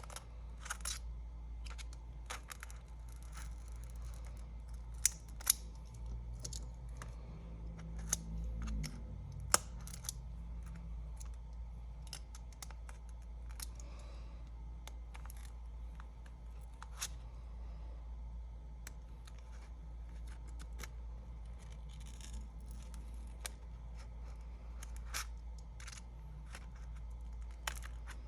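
Scattered sharp clicks and taps of small repair tools against the iPad's glass and frame as the display is worked loose, a few much louder than the rest, over a steady low hum.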